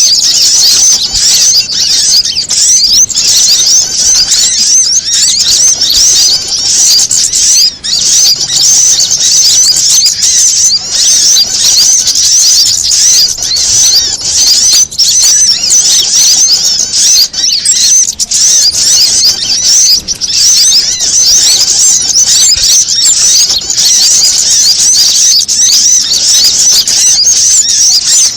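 Dense, continuous high-pitched chattering and twittering of many small birds, layered into a busy bird-lure track that mixes the alarm and contact calls of small songbirds such as prinias and sunbirds.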